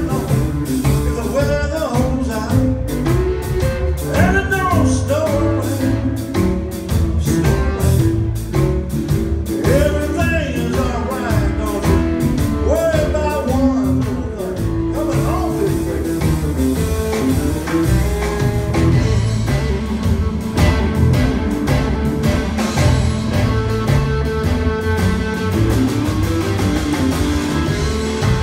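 Live blues band playing a song, with a lead voice over electric guitar, bass and drums for about the first half, then the band carrying on without the voice.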